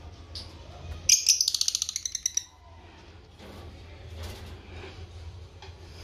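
Lovebird giving a loud, fast, even rattling chatter for about a second and a half, starting about a second in, followed by a few faint chirps.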